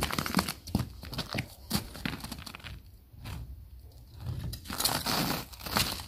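Footsteps on snow and icy ground, a few steps a second, pausing about halfway and then picking up again with more scuffing near the end.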